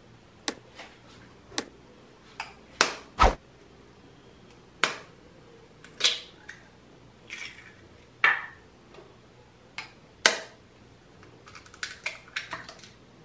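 Eggs being cracked with a knife over a plastic mixing bowl: a string of sharp, irregular taps and cracks with short pauses between them.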